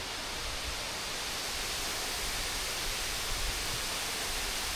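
Steady, even rush of a large waterfall, water pouring over limestone cliffs about 15 metres high and running in full rainy-season flow.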